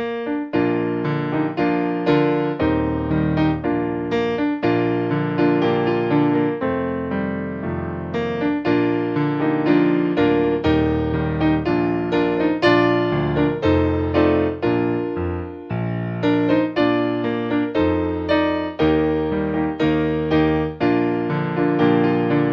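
Background piano music, a steady flow of soft notes.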